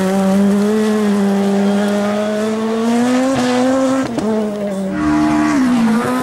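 R2 rally car engines at high revs. A Ford Fiesta R2 on a gravel stage holds a high, slowly rising engine note for about three seconds before it breaks off. About five seconds in, another rally car's engine comes in high and its pitch falls near the end.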